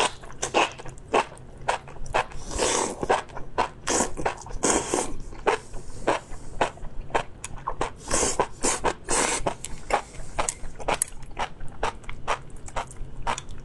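Close-miked mouth sounds of eating spicy enoki mushrooms in chili oil: wet smacking and chewing clicks throughout, with several longer slurps as strands are drawn in.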